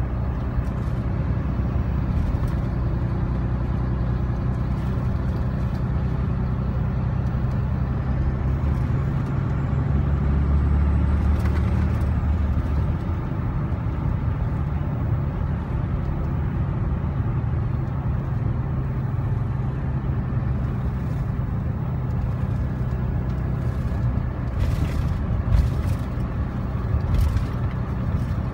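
2015 Ram 3500's 6.7-litre Cummins turbo-diesel inline-six pulling steadily at cruising speed, heard from inside the cab as a low, even drone. It swells louder for a couple of seconds near the middle, then settles back. A few short knocks come near the end.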